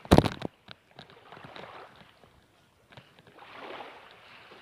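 Small waves washing up on a sandy shore in two soft hissing swells, one about a second in and one around three and a half seconds in. A loud thump sounds right at the start.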